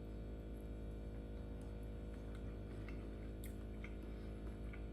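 A fork or other cutlery clicks lightly on a plate a few times over a steady low hum.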